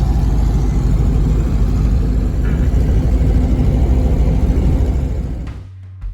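Steady, loud low rumble of a road vehicle running, fading out near the end as guitar music comes in.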